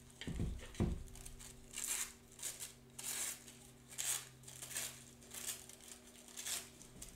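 Collage tissue paper being handled and torn: a rhythmic run of short, scratchy rustles, about two a second, after two soft thumps near the start.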